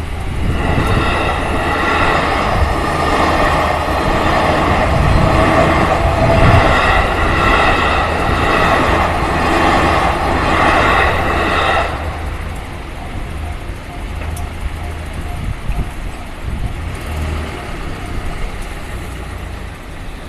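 Japanese level-crossing warning bell ringing in a steady repeating pattern, then stopping about 12 seconds in, over a steady low vehicle rumble.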